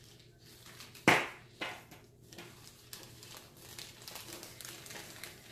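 Thin plastic zip bag crinkling and rustling as it is handled and a hygrometer is slipped inside, with one louder crinkle about a second in and lighter crackles after.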